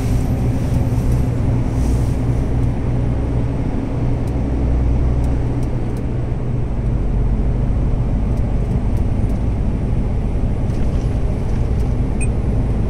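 Steady low drone of a MAN truck's engine and tyres at motorway cruising speed, heard inside the cab.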